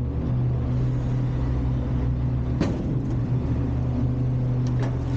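Front-load garbage truck's engine running steadily, with a sharp knock about two and a half seconds in and two lighter knocks near the end.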